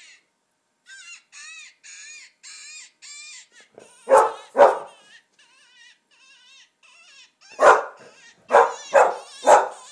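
Predator call from a coyote-hunting video played through laptop speakers: a run of high, wavering cries. An English Springer Spaniel answers with loud barks, twice about four seconds in and four more times near the end.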